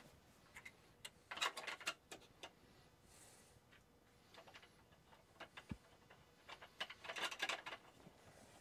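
Faint, scattered light clicks and taps of a hand handling a red plastic breaker holder and its wiring, with a small cluster about a second and a half in and another near the end.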